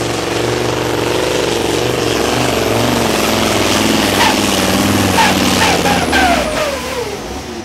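MAN pulling truck's diesel engine running hard at high revs, dragging the weight sled, with a few sharp clicks about two-thirds of the way through; near the end the revs fall away in a falling pitch and the sound drops off.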